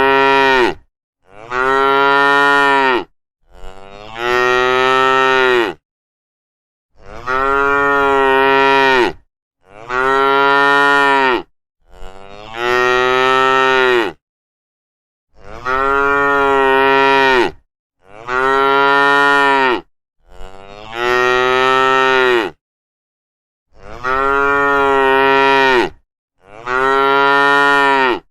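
Cows mooing: a long series of loud moos, each about two seconds long, following one another with short silent gaps between them.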